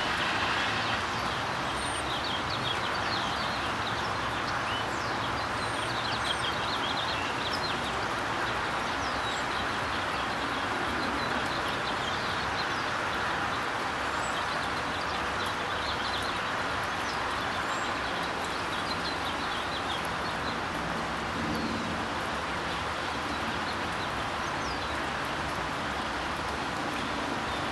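Steady outdoor ambient noise with small birds chirping now and then over it.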